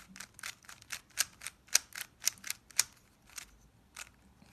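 Plastic Rubik's Cube layers clicking as they are turned by hand, about three or four sharp snaps a second, thinning to a couple of sparse clicks in the last second and a half. The same two turns are repeated over and over: left face counterclockwise, top face clockwise.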